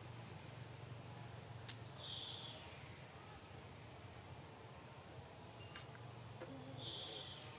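Insects trilling: a thin, steady high-pitched tone that breaks off and resumes, with two short hissy bursts about two seconds in and near the end. A faint low hum runs underneath.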